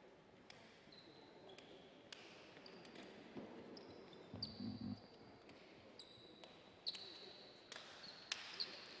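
Basketball shoes squeaking on a hardwood court: short, high squeals here and there over a faint hall murmur, with one low thud about four and a half seconds in.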